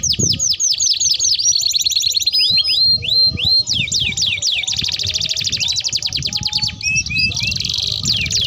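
Canaries singing long rolling trills: fast runs of repeated sweeping notes that switch to a new pattern every second or two, with a few slower whistled notes in between.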